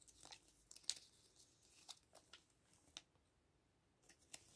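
Faint crackles of a small folded paper insert from a gachapon capsule being unfolded by hand: a handful of short, sharp crinkles, the sharpest about a second in.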